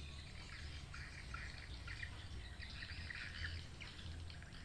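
Small birds chirping and twittering, many short calls overlapping, over a steady low rumble.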